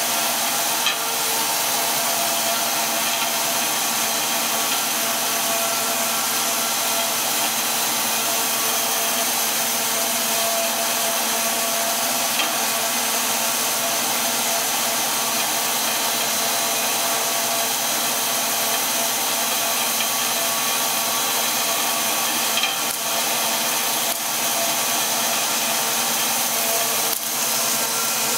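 Two-stage recycling machine running steadily: a constant mechanical whir with several steady tones, unchanged throughout.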